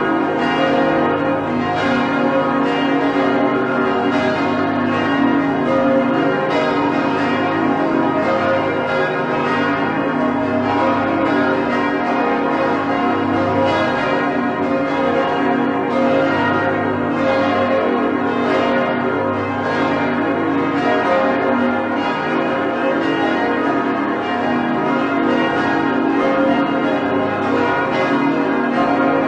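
Large church bells swinging and ringing continuously, strokes following one another closely so the ringing never dies away.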